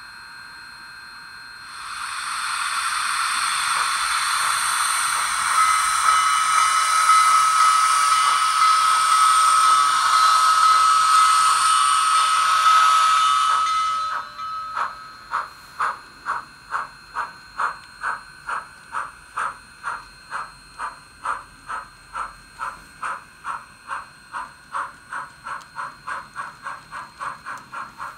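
ESU LokSound sound decoder in a Kato N scale Union Pacific FEF steam locomotive, played through the model's small speaker. About two seconds in, a long loud hiss of steam starts, with a steady tone running through it, and stops suddenly around the middle. Then the exhaust chuffs begin, starting at about two a second and quickening to about three a second as the locomotive gets its freight train moving.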